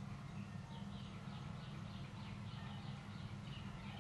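Birds chirping in a quick series of short high calls, several a second, over a steady low hum.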